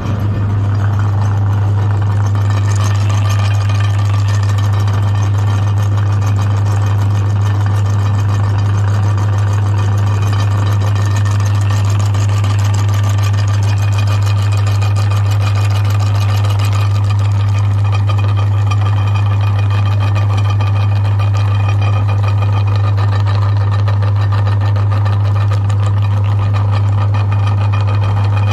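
Electric meat grinder motor running steadily with a strong low hum, switched on just before and running without a break.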